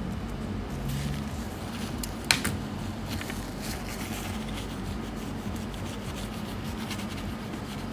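Light handling and rubbing noises from work on a laptop's parts at a repair bench, with one sharp click a little over two seconds in, over a steady low hum.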